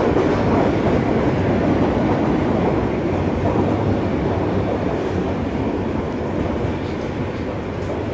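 Steady ride noise inside a carriage of an ED2T electric commuter train under way: the rumble and rattle of wheels on the rails.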